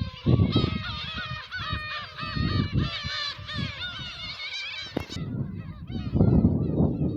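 A large flock of black-tailed gulls calling, many cat-like cries overlapping, with wind buffeting the microphone in loud gusts. A sharp click comes about five seconds in, after which the calls are fainter and the wind noise heavier.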